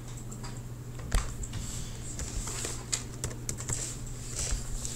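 Computer keyboard keys and mouse buttons clicking in irregular short taps, with one sharper click about a second in, over a steady low hum.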